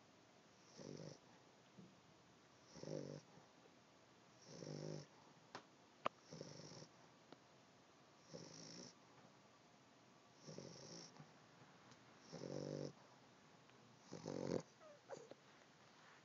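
An animal snoring softly and rhythmically in its sleep: eight snores about two seconds apart, each a low rattling breath with a faint whistling hiss.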